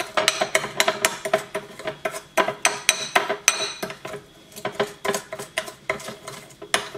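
Metal spoon stirring and scraping a gritty sugar-and-oil lip scrub in a black bowl, clinking against the bowl several times a second, with a short lull about four seconds in.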